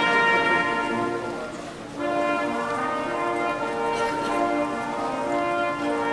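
Instrumental music: several held, pitched notes sounding together and changing every half second or so, with a brief lull just before two seconds in.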